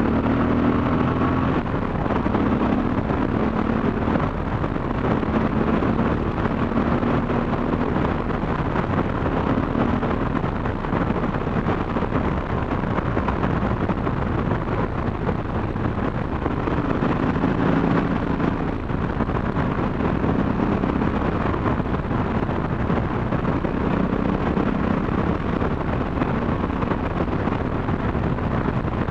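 Wind rushing and buffeting the microphone on a motorcycle at road speed, with the motorcycle's engine running underneath. The engine's note shows through faintly now and then.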